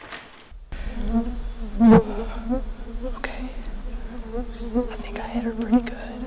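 Flying insects buzzing close to the microphone, a wavering hum that starts about half a second in, with a single loud knock about two seconds in.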